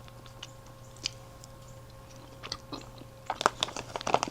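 A person chewing fruit close to the microphone: scattered soft mouth clicks, then a quick run of wet crunching bites in the last second, over a faint steady hum.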